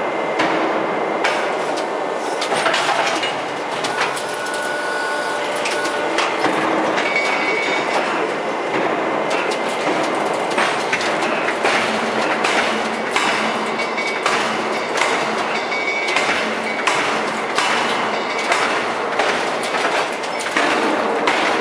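Open-die forging press and manipulator working a red-hot nickel-alloy bar: a loud, steady machinery din with frequent irregular clanks and knocks from the dies and tongs.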